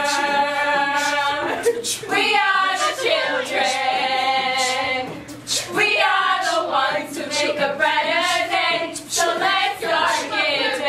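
A group of female voices singing together in long held notes, with short breaks for breath between phrases.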